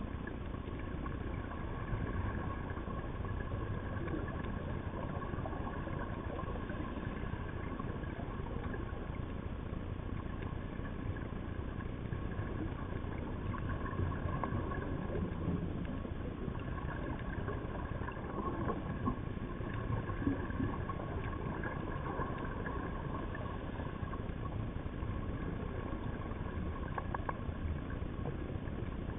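Steady underwater rumble picked up by a camera in its dive housing, with two faint steady high tones running through it and a few light clicks.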